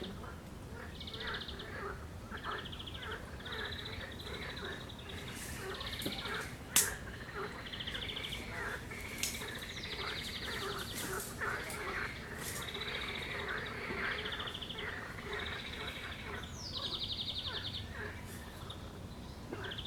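Lakeshore chorus of birds singing and frogs croaking, with a short buzzy trill repeating every second or two over a dense tangle of warbling calls. One sharp click about seven seconds in.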